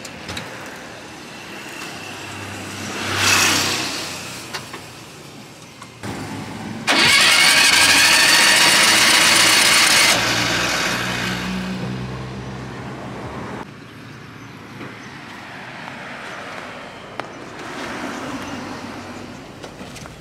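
Volkswagen Kombi's air-cooled flat-four cranked on the starter for about three seconds without catching; the engine won't fire because its camshaft has broken. Before it, a passing vehicle rises and fades.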